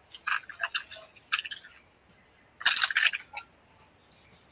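Dry sotanghon glass noodles crackling and snapping in short irregular bursts as they are pulled apart by hand. A brief high chirp sounds near the end.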